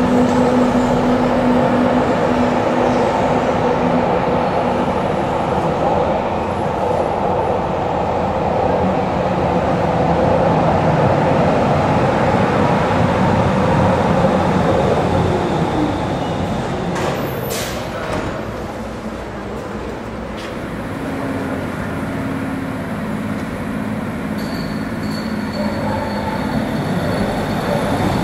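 Berlin U1 U-Bahn trains running through an elevated station with a steady rumble and hum. Brief high squeals and clicks come about seventeen seconds in as a train brakes on the near track, and the noise eases while it stands. Near the end a thin high whine sets in and the noise grows again as the train pulls out.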